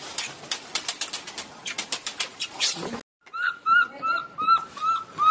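Baby macaque giving a rapid series of about seven short, high coo calls, each rising and falling, starting after a brief cut to silence about three seconds in. Before that come scattered sharp clicks and rustles of scrabbling in dry debris.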